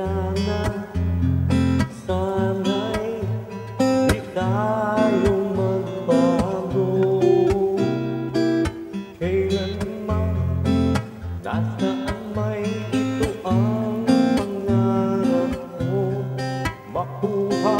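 A man singing a slow Tagalog ballad over acoustic guitar accompaniment.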